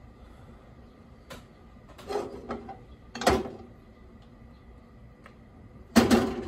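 Kitchen items being handled: a faint click, a short rattle, a sharp knock a little over three seconds in, and a louder clatter near the end.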